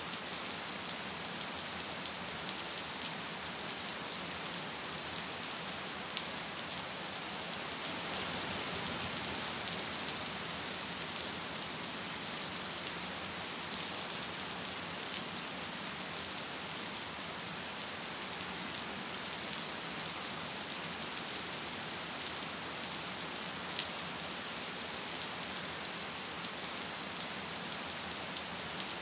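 Gentle rain falling steadily: an even hiss with scattered single drops ticking, swelling slightly about a third of the way in.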